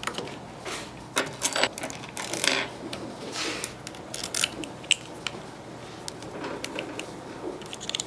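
Vise jaw plates and fasteners being handled and fitted together: scattered sharp clinks and clicks of metal parts, with a couple of short scrapes a few seconds in.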